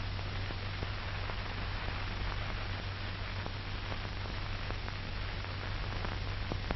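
Steady hiss and low hum of an old 1940s film soundtrack, with scattered faint crackles and clicks.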